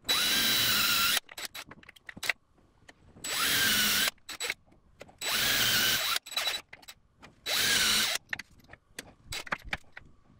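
DeWalt 20V MAX cordless drill boring holes through a plywood pedalboard in four bursts of about a second each, the motor whine rising as each burst starts. Light clicks and knocks between the bursts as the drill and guide are moved to the next hole.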